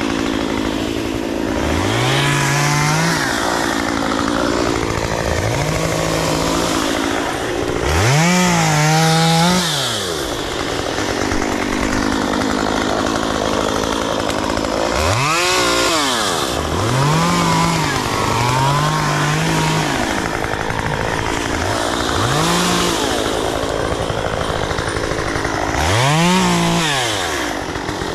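Two-stroke chainsaw cutting brush and wood, its engine revved up to full speed and eased back off about eight times.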